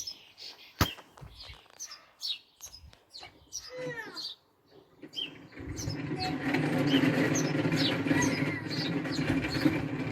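Small birds chirping repeatedly in short, high, falling notes. A sharp tap sounds just under a second in, and a steady low hum comes in about halfway through and continues.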